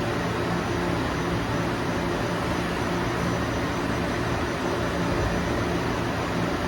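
Taiyo Koki CVG-13 grinding machine running steadily while machining a cast-iron (FC250) workpiece: a constant hiss with a steady low hum, and no distinct strikes or changes.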